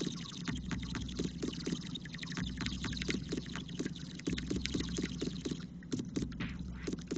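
Water pipe (bong) bubbling as smoke is drawn through it: a rapid, irregular gurgle of many small pops that eases briefly near the end and then picks up again.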